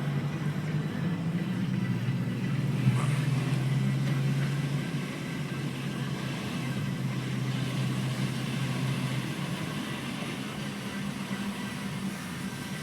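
Mk4 Volkswagen Golf engine running steadily, with a faint high whine from its stock turbocharger. There is a single short click about three seconds in.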